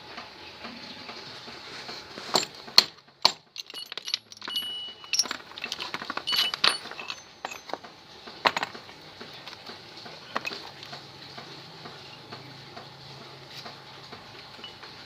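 Metal clinking and clattering: small metal pieces knocking together several times, a few strikes ringing briefly, over a faint steady hum.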